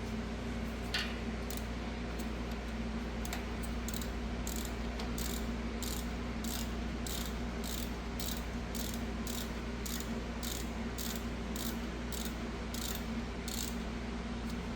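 Hand ratchet turning a 10 mm deep socket, clicking in a steady run of two or three back-strokes a second from about four seconds in as the brake caliper's top bolt is run down. A steady low hum runs underneath.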